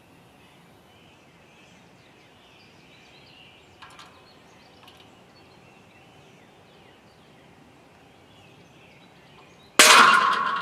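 A seized piston in a Studebaker Commander inline-six block breaking loose under a hydraulic shop press near the end, with one sudden loud metallic bang that rings on and dies away. It jumps a little further down the bore each time it lets go under press pressure.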